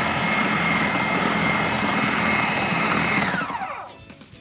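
Electric food processor running steadily with a whine, blending minced kofta meat mixture into a smooth paste. About three seconds in it is switched off and its pitch falls as the blade spins down.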